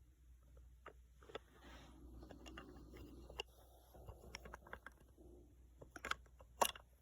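Light handling noise from a wooden toy engine being picked up and turned over: scattered soft clicks and taps with a brief rustle, and one sharper click near the end.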